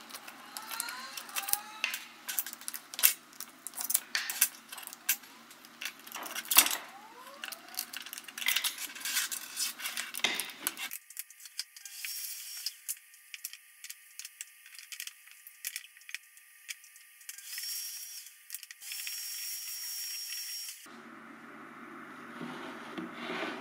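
Cut walnut parts clacking and knocking against each other and the table as they are lifted off the CNC vacuum table. About eleven seconds in this gives way to a shop vac hose hissing as it sucks up chips, with a high whistle at times.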